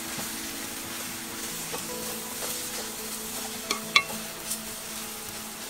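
A spatula stirring and scraping a potato and vegetable filling as it fries and lightly sizzles in a metal pot. The spatula knocks sharply against the pot twice about four seconds in, then once more, softer.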